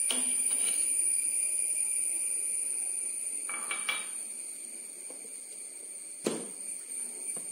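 Small clinks of a drinking glass against a steel mixer-grinder jar as oil is poured in. About six seconds in comes one sharp clack as the jar's lid is fitted, then a lighter knock.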